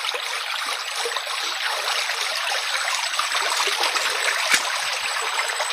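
Shallow river water rushing steadily over stones close to the microphone, with a few light ticks.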